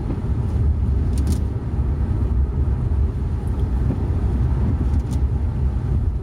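Steady low engine and road rumble inside a moving car's cabin, with a couple of brief faint clicks.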